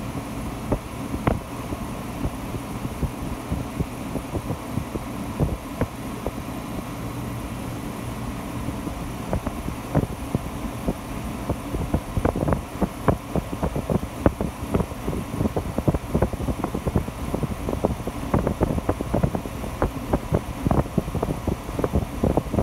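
1962 RCA Whirlpool 8500 BTU window air conditioner with a Tecumseh AU pancake compressor running steadily on high cool, its fan blowing hard. The air stream buffets the microphone at the grille in irregular low thumps, more of them in the second half.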